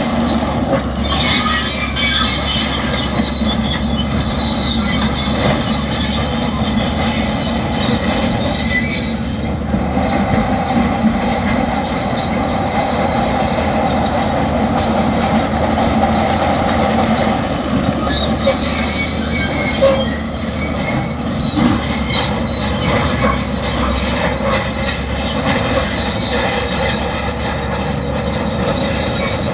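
Shantui crawler bulldozer working: its diesel engine runs steadily under load while the steel tracks squeal. The high track squeal comes and goes and is strongest in the second half.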